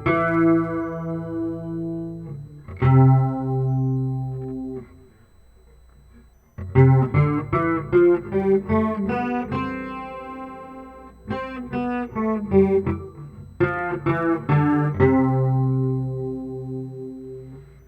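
Guitar played through a phone app's guitar effect. A couple of strummed chords ring out and die away, then come a run of quick picked notes after a short pause, and a final chord that rings out.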